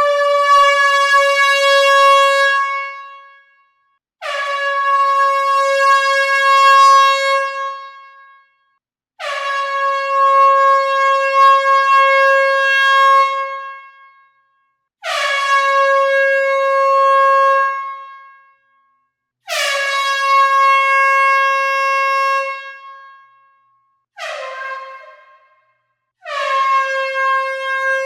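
Air horn sounding in a series of loud, separate blasts of about three to five seconds each, with one short blast near the end. Each blast is one steady high note with many overtones, scooping briefly up in pitch as it starts.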